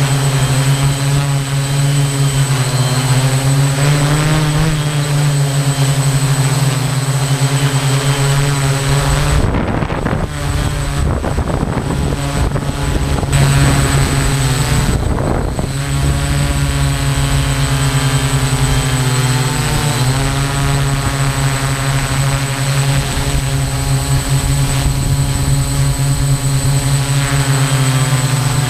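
A multirotor drone's motors and propellers give a steady, pitched whine. About ten to sixteen seconds in, the pitch shifts and wavers and a rougher rushing noise breaks in.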